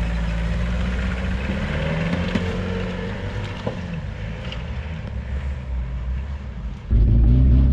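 Suzuki Vitara 4x4 engine driving off-road, its note rising and falling as it works. About seven seconds in the engine abruptly gets much louder.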